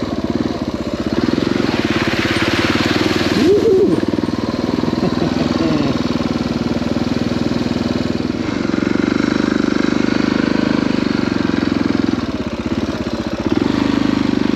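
Suzuki DR650's single-cylinder engine running as the bike is ridden, the note easing off and picking up again a few times with the throttle. A hiss of wind or loose ground rises briefly about two to three seconds in.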